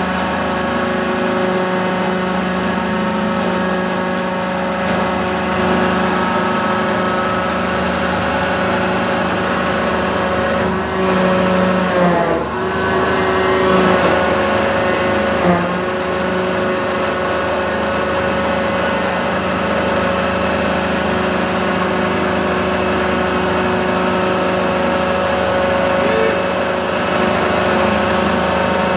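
An engine running steadily under load, its pitch dipping and then recovering about twelve seconds in. No hammer blows are heard.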